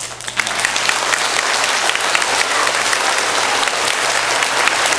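An audience of schoolchildren applauding: dense, even clapping that breaks out suddenly and holds steady.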